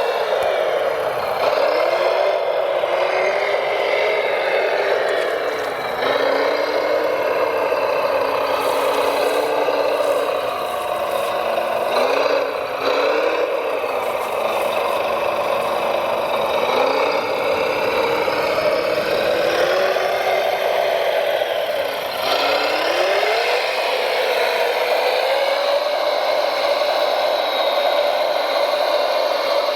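Radio-controlled model truck running, its motor whine rising and falling in pitch as the throttle changes, with some rattle.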